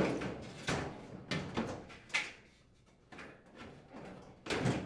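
Metal drum of a Maytag dryer knocking and scraping as it is set back onto its rollers in the cabinet: a string of irregular bumps and rubs, the loudest at the start and just before the end.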